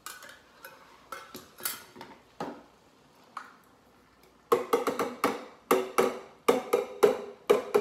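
A large metal can of crushed tomatoes being emptied into a slow cooker: a few light clinks and scrapes, then, from about four and a half seconds in, the upturned can hit on its bottom about four times a second with a ringing metal knock to shake the tomatoes out.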